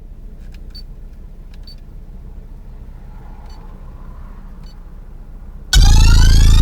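A low steady rumble, then about 5.7 s in a pair of MTX 9500 12-inch subwoofers suddenly start playing at high volume. It sounds like a rising bass sweep, so loud that it overloads the recording into a harsh, distorted mass of rising tones.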